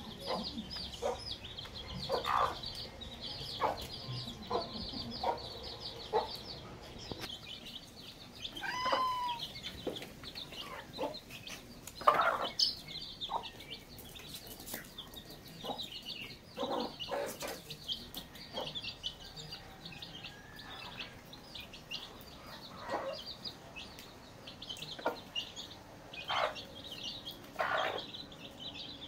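Domestic chicks peeping constantly in short high calls, with a hen clucking now and then among them.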